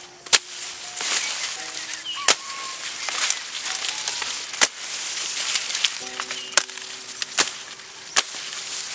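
Plants rustling as they are handled at close range, with about six sharp snaps spaced a second or so apart, over soft background music.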